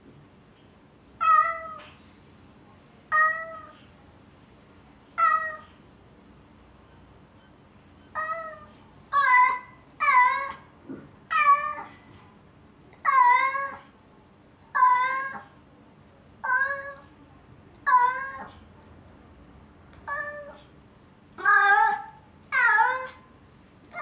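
Domestic cat meowing over and over, about fourteen loud, drawn-out calls spaced a second or two apart, coming faster and louder toward the end. These are lonely calling cries for absent owners.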